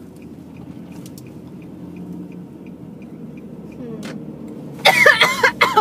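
Car engine and road hum heard from inside the cabin, with a faint, even ticking about three times a second that stops after about three seconds. Near the end, a burst of loud voices.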